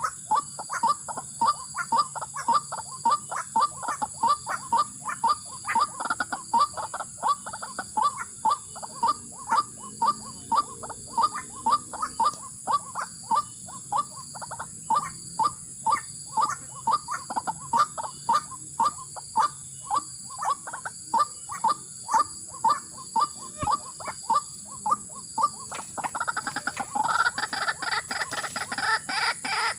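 White-breasted waterhen calling in a steady, monotonous series of short notes, about two a second. Near the end, a faster, higher-pitched calling takes over.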